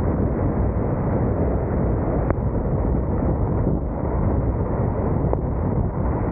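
Steady low rushing rumble of a car driving on a wet highway, road and tyre noise mixed with wind on the microphone, with two faint clicks about two and five seconds in.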